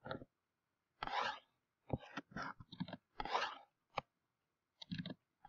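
A finger drawing on a touch surface: irregular short scratchy strokes, with a few sharp clicks, one of them about four seconds in.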